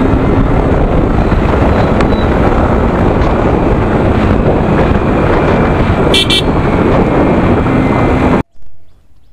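Steady wind rush on the microphone with engine and tyre noise from a Yamaha R15M being ridden at about 50–60 km/h. A vehicle horn gives two short toots a little past the middle. The sound then cuts off abruptly near the end.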